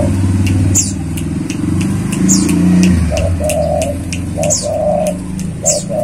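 Spotted dove cooing, its short low coos coming in a few groups. Underneath is a low steady rumble, and thin, high falling chirps of small birds recur every second or so.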